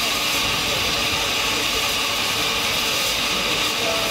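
Narrow-gauge steam locomotive letting off steam: a steady, even hiss with no exhaust beats.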